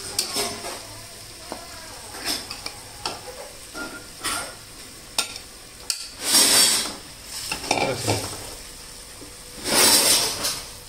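Steel spoon clinking and scraping as marinated chicken pieces are pushed off a plate into a metal kadai and stirred, the chicken sizzling in hot oil. Two louder, longer stretches of sizzle and scraping come about six and ten seconds in.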